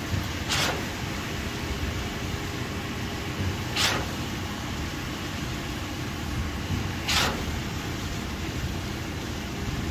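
An engine running steadily with a low rumble. A short, falling hiss repeats in an even cycle about every three seconds.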